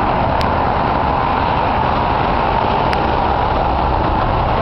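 Steady noise of highway traffic, cars and trucks passing below an overpass.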